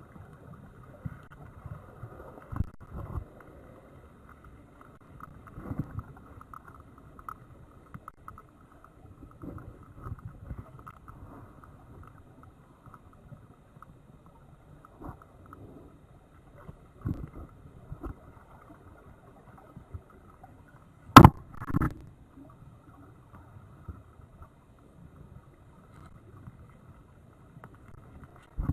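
Muffled underwater noise of a diver swimming through a rock cave: a low rush of water with scattered dull knocks, the loudest a sharp knock about 21 seconds in.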